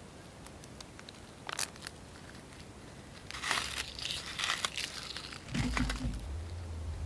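Dry twigs and a handful of dead-leaf and grass tinder crinkling and snapping in the hands as a campfire lay is built: a few sharp snaps, then a longer stretch of crinkling. A low rumble comes in near the end.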